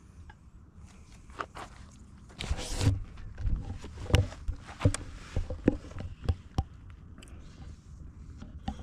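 Handling noise as the camera is picked up and carried to the frying pan: a brief rustle about two and a half seconds in, then a run of irregular knocks and clicks, loudest about four seconds in.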